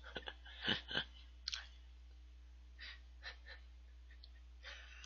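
A man's quiet breathing and small mouth sounds, a few soft clicks and puffs, ending in a breathy exhale like a sigh.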